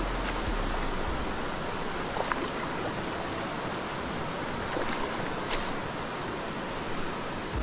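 Steady rushing of a small mountain stream's flowing water.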